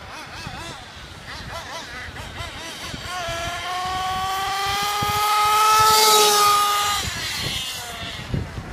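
Mugen nitro truggy's small glow-fuel engine running at high revs: the pitch wavers with throttle blips at first, then holds a high-pitched buzz that grows louder as the truggy approaches, peaks about six seconds in, and falls away as it passes.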